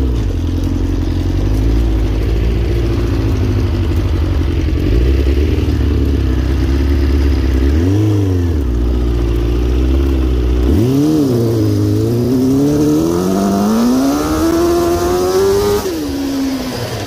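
Kawasaki 400cc four-cylinder motorcycle engine in a quad, run under throttle as it is ridden. Revs swing up and back down about halfway through and again a little later, then climb steadily for about four seconds before the throttle closes near the end.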